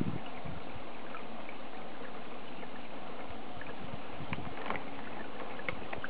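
Steady running, trickling water of a garden pond, with a few faint short ticks in the second half.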